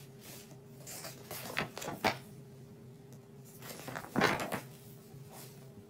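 Printed paper pages being handled and flipped: a few soft rustles and a light tap in the first couple of seconds, then a louder swish of a page turning about four seconds in.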